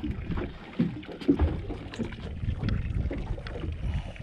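Boat sounds on the water: wind buffeting the microphone, with a few light knocks and clicks.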